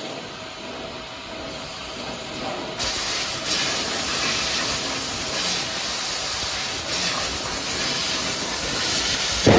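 Laser tube cutting machine working a steel tube in its rotary chuck, with a steady machine hiss that gets louder about three seconds in.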